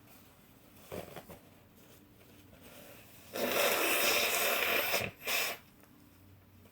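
A woman blowing her nose into a tissue, after sneezing fits: one long blow of about a second and a half, then a short second blow. Two quick sniffs come about a second in.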